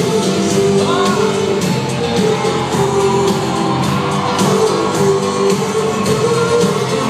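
Live pop song with singing over a band, heard from the stands of a large arena, so it comes through loud and echoing.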